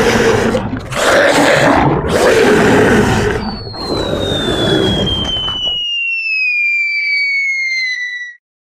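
Spooky Halloween sound effects: several loud roars, each lasting about a second. About three seconds in, a long whistle starts falling slowly in pitch. It goes on after the roars stop and cuts off near the end.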